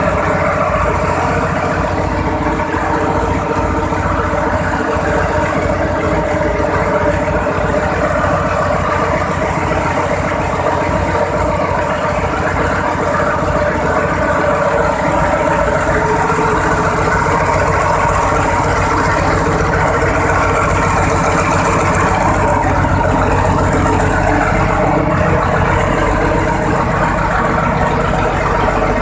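Cummins VTA-28 V12 turbocharged marine diesel running steadily just after its overhaul, a loud low even pulsing with no change in speed.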